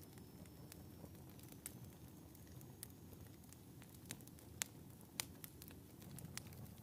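Wood fire burning in a wood stove: faint crackling with scattered sharp pops over a low rumble, the two loudest pops about two-thirds of the way through.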